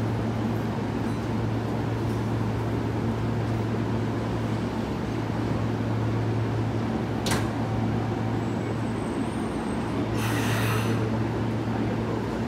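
Steady low hum of Hanshin 1000-series electric trains standing at the platform, their onboard equipment running while stopped, with a click about seven seconds in and a short burst of hiss about ten seconds in.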